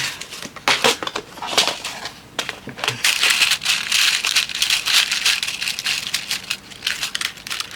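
Crinkling and rustling of plastic packaging with many small clicks and taps as jewellery-making supplies are rummaged through, densest about halfway in.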